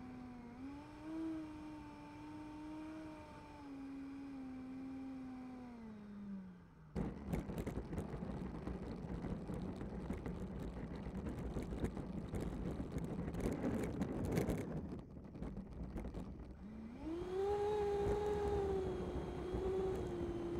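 Electric ducted fan of an 80 mm Freewing Avanti RC jet whining at part throttle, dropping in pitch as the throttle is pulled back. About seven seconds in, the wheels touch down and a louder, clattering rumble of the small wheels rolling on rough asphalt takes over for about ten seconds. Then the fan whine rises again and holds steady as the jet taxis.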